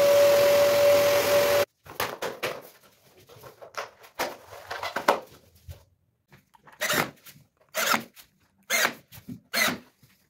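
A power tool's motor running at a steady speed, cutting off abruptly under two seconds in, followed by a series of short rasping strokes of hand work, about one a second toward the end.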